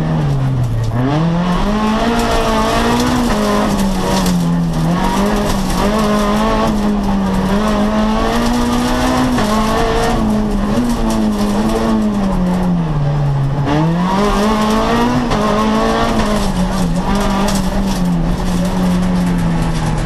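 Rally car engine heard from inside the cabin, revving hard and changing up and down through the gears at stage pace. The pitch drops sharply under lifting and braking about a second in and again about two-thirds of the way through, then climbs back as the car accelerates.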